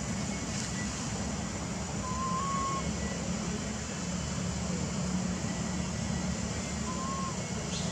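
Steady low background rumble, with two brief faint whistle-like calls, one about two seconds in and one near the end.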